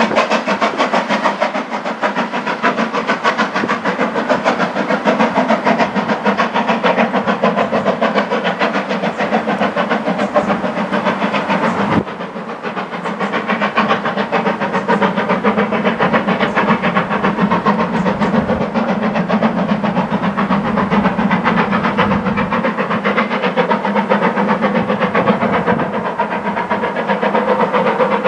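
Steam locomotive working hard as it hauls its train away: a steady, rapid beat of exhaust with steam hissing. The sound dips abruptly about twelve seconds in, then builds back up.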